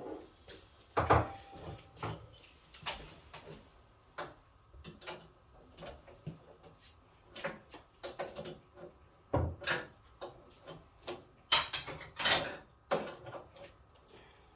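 Irregular clicks, knocks and clunks of tools and parts being handled, loudest about a second in, about nine and a half seconds in, and around twelve seconds in.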